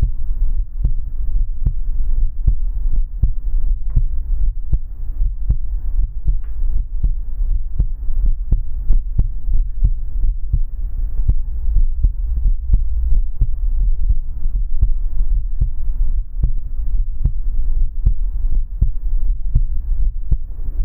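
A heartbeat heard up close: a steady run of deep, muffled thumps, over a low steady hum.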